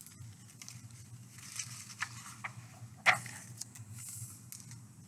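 A picture book's paper pages being turned and handled: soft rustles and a few light clicks, the sharpest about three seconds in, over a low steady hum.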